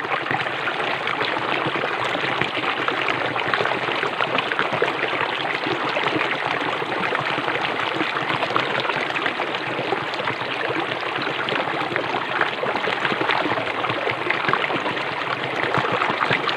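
Water flowing steadily, an even rushing hiss that does not change.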